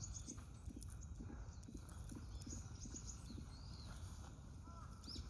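Faint high, thin bird calls and, near the end, a few short hooked calls, over a low outdoor rumble and a soft regular knocking about three times a second.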